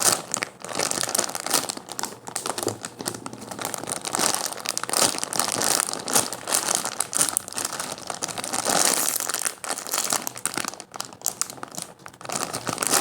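Plastic crinkling and rustling, irregular and continuous, as a squishy toy is handled and turned in the hands.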